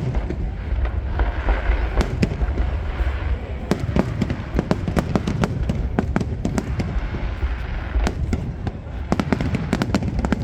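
Fireworks display going off continuously: dense rapid crackling and popping over a steady deep rumble of booming shells.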